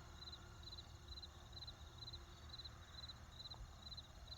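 Faint crickets chirping steadily, about two short pulsed chirps a second, over a low background hum.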